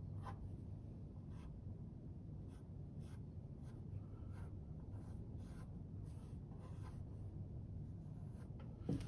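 Wooden graphite pencil sketching on paper, short scratchy strokes at irregular intervals, over a steady low room hum.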